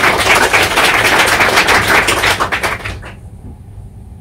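Audience applauding: a dense run of many hand claps that dies away about three seconds in.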